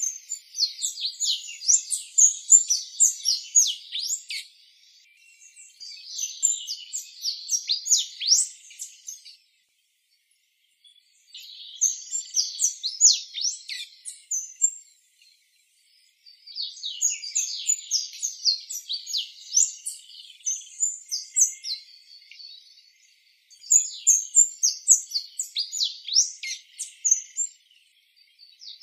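Orange-headed tanager singing: rapid, high-pitched chips and twitters delivered in five bouts of a few seconds each, with short pauses between them.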